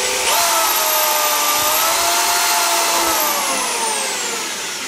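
Electric drill running as it bores a small pilot hole for a screw in the subwoofer box panel. Its motor whine jumps up in pitch just after the start, holds steady, then winds down over the last two seconds.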